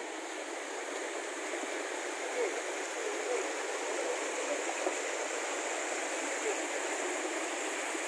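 River water rushing steadily, an even, unbroken rush of flowing water.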